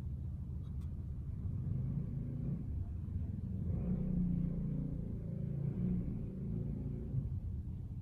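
Low rumble of distant road traffic, swelling about four seconds in and easing off after.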